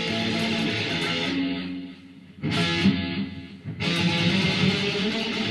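Electric guitar played loud and sustained through an amplifier. About a second and a half in, the sound drops away briefly twice, with a sharp accented hit between the two breaks, and then the full sound comes back.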